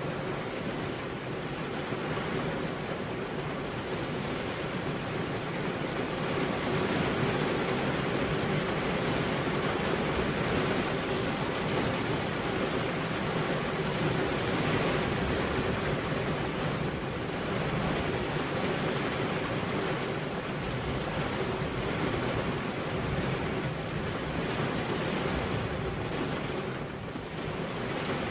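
Heavy rain falling steadily on a road: a continuous, even hiss with no thunder.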